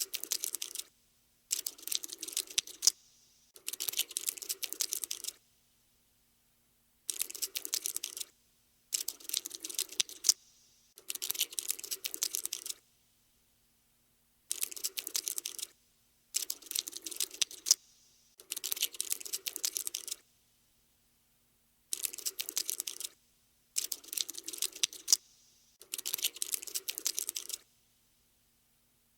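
Cockroach-scuttling sound effect: quick skittering clicks of insect legs in about a dozen short runs of one to two seconds each, separated by brief pauses.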